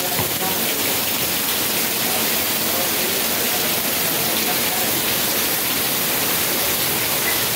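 Heavy rain pouring down steadily onto pavement and standing water, a dense, even hiss.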